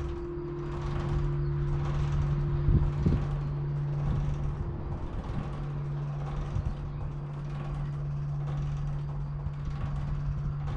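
Church bell swinging in full peal, the strokes coming about once a second over the sustained low hum of the bells. A higher tone in the hum fades out about three seconds in.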